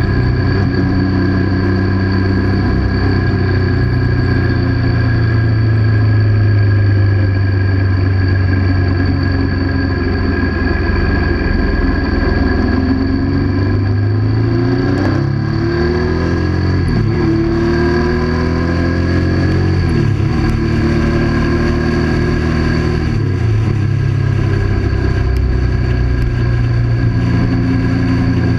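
1998 Triumph Sprint 900's three-cylinder engine running at road speed. The engine note dips and climbs back up several times through the middle of the ride.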